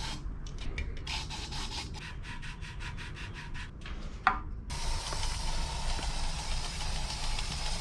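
Rhythmic scrubbing of bicycle headset parts, about five quick rubbing strokes a second, with a short squeak near the end of the strokes. After that a steady hiss takes over for the last few seconds.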